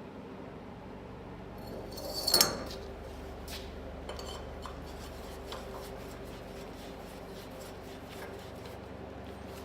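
Steel core-barrel parts knocking and clinking as they are handled and fitted together. There is one louder metal clank and scrape about two and a half seconds in, then scattered light clicks, over a steady low hum.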